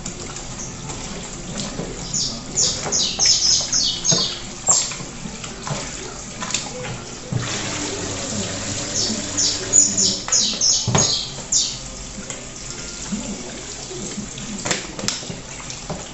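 Kitchen tap running into a sink as raw chicken is washed under it. Two flurries of short, sharp high sounds come through, about two seconds in and again around nine to eleven seconds, and there is one knock near eleven seconds.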